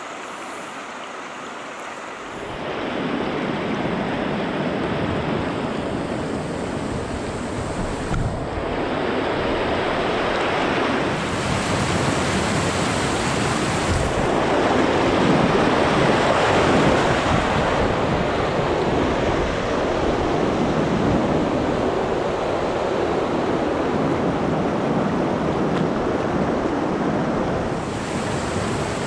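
Rushing whitewater of a rocky river rapid, a steady roar of water, with wind noise on the microphone. It grows louder about two seconds in, as the sound comes from close to the fast water.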